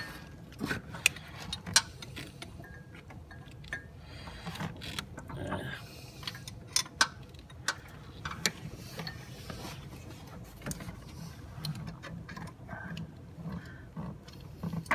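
A 13 mm ratcheting wrench clicking in short, irregular strokes on the bottom AC compressor mounting bolt, with occasional sharp metal clinks.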